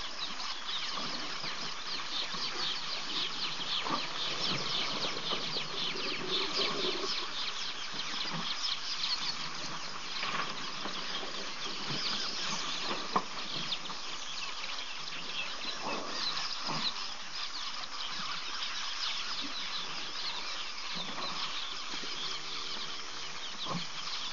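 Waterhole bush ambience: a dense, continuous chatter of small birds, with a few scattered short knocks and a sharp click about thirteen seconds in.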